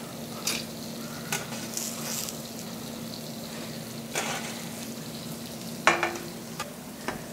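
Steady sizzling of diced apples cooking in butter and sugar in a skillet, over a steady low hum. A metal baking tray clanks and scrapes several times as it is handled, the loudest clank about six seconds in.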